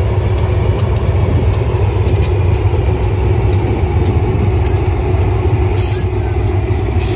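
Diesel locomotive engine running steadily: a loud, even, deep drone with a steady faint whine above it.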